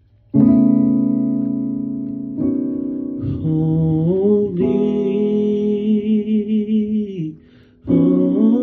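A man singing slow, wordless drawn-out notes with slides and vibrato over held accompanying chords, the voice coming in about three seconds after the first chords and pausing briefly near the end.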